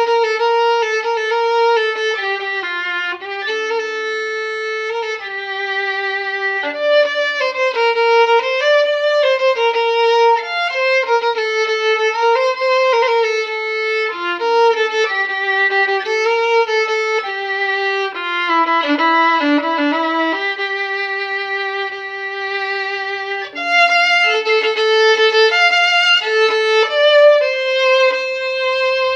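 Soundtrack music: a solo violin playing a slow, lyrical melody, with a quick run of notes a little past the middle and a long held note after it.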